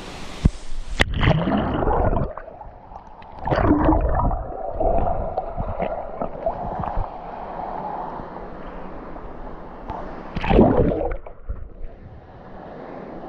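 Water heard through a submerged action camera: muffled gurgling and bubbling, with loud surges of bubbles about a second in, at about three and a half seconds, and again near ten seconds.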